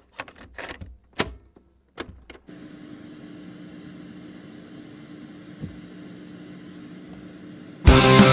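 Opening of a punk rock recording: a few scattered clicks and knocks, then a steady hum with hiss for about five seconds, before the full band with electric guitars comes in loudly near the end.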